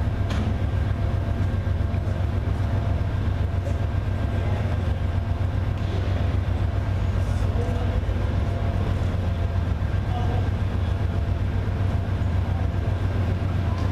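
Stopped Amtrak passenger train's diesel locomotive idling: a steady low drone with a faint, even whine above it.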